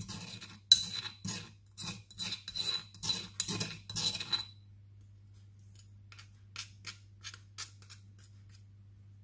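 Metal spoon scraping and clicking against a stone pestle to clear off pounded garlic and coriander paste: quick repeated scrapes for about four seconds, then only faint light ticks.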